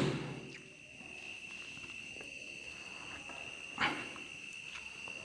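Quiet room tone under a steady high-pitched whine, with one brief soft sound about four seconds in.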